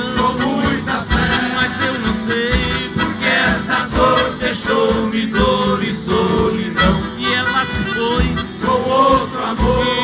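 Live Brazilian country (caipira) music from an ensemble, with a steady low beat and sustained, wavering melody lines over it.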